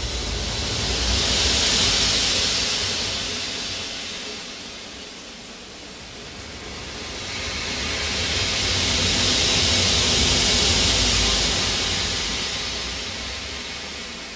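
Ambient sound-art composition of hissing noise that slowly swells and fades twice, peaking about two seconds and ten seconds in, like slow surf or breathing, over a steady low rumble.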